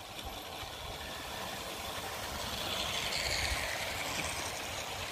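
OO-gauge model trains running on the garden railway track: a steady whirr of the locomotive motor and rattle of wheels on the rails. It grows louder as a train nears, loudest about three and a half seconds in.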